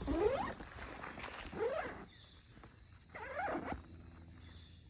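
Zipper on a hunting ground blind's fabric window being pulled in three strokes, near the start, about a second and a half in and about three seconds in, each stroke rising in pitch.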